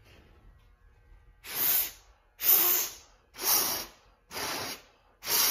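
A man blowing hard by mouth into a car tire's valve to put air in a low tire: five long hissing puffs of breath about a second apart, starting about a second and a half in.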